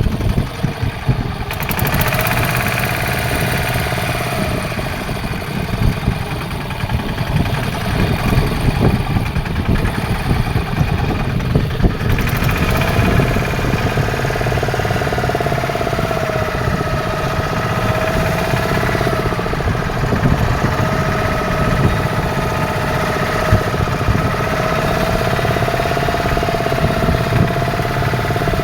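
Fishing boat's engine running steadily, with a wavering whine over the rumble.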